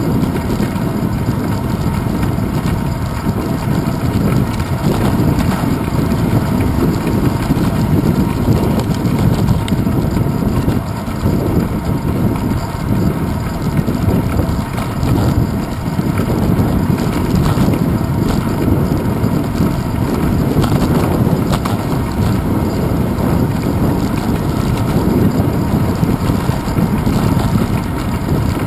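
Wind buffeting and road rumble picked up by a handlebar-mounted GoPro Hero 2 on a bicycle rolling over a paver-stone path: a loud, steady, low rumble that rises and falls without a break.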